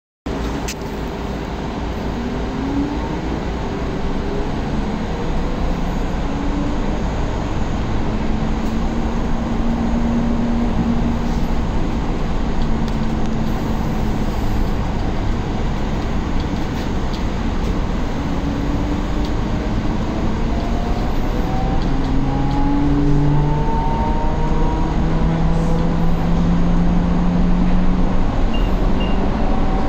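Cabin noise aboard a moving Solaris Urbino 9 LE battery-electric midibus: steady road and tyre rumble, with the electric drive's whine gliding up in pitch as the bus picks up speed, several times.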